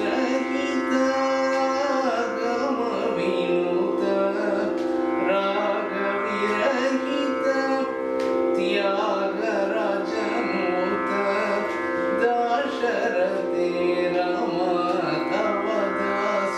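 Male voice singing a Carnatic classical melody with sliding, ornamented phrases over a steady drone.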